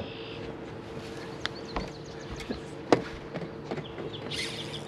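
Bass boat's electric trolling motor humming steadily, with scattered light clicks and knocks of fishing tackle on the deck, one sharper knock about three seconds in. A hiss comes in near the end.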